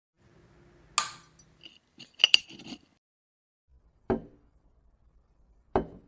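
Miniature glassware and utensils being handled: a light tap about a second in, a quick run of bright glassy clinks around two seconds in, then two duller knocks as small pieces are set down, about four and six seconds in.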